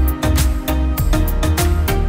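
Background music with a steady drum beat over a sustained bass and melody.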